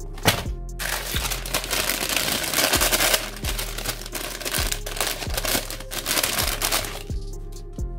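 White paper wrapping crinkling and rustling as it is handled and unfolded, loudest from about one to three seconds in, over background music with a steady beat.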